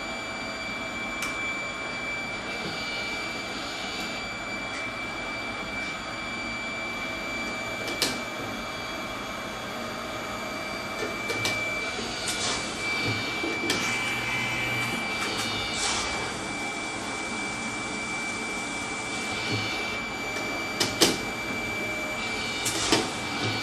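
Microplate washer and dispenser system running its wash cycle: a steady pump hiss with a constant high whine, broken by several sharp clicks and a few short low hums.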